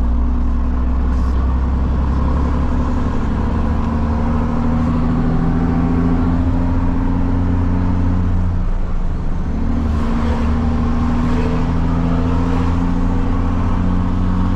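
Diesel truck with a straight-through open exhaust accelerating under load, heard from inside the cab. The engine note climbs steadily, breaks off briefly for a gear change about nine seconds in, then climbs again in the next gear.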